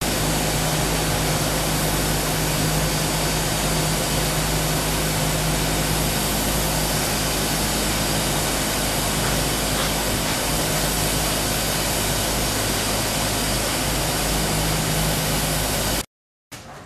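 Steam hissing steadily out of a steam-heated press for old dark beeswax combs as steam is fed through to melt the wax, with a steady low hum underneath. It cuts off suddenly near the end.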